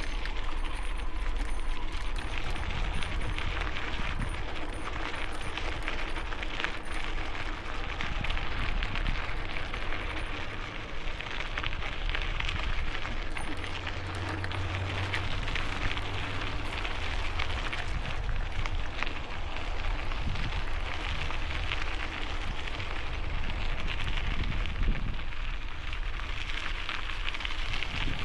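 Wind and riding noise on a helmet-mounted camera microphone while cycling: a steady hiss with a low rumble of wind buffeting the microphone.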